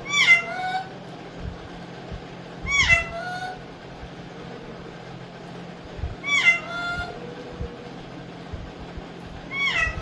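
Alexandrine parakeet talking, repeating the same short utterance four times about three seconds apart, each one rising briefly and then falling in pitch.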